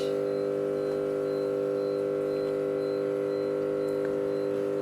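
A steady, unchanging hum made of several held tones.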